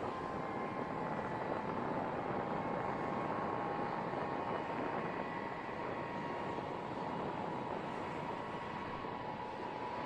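B-52 bomber's jet engines running on the ground: a steady rushing noise with a high turbine whine held throughout.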